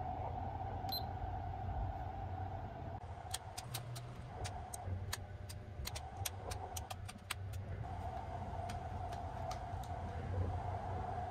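Small clicks of the buttons and switches on a Sunrise Express sleeper berth's control panel, a quick run of them from about 3 to 7 seconds in and a few more after, with a short high beep about a second in, over the steady low rumble and hum of the train running.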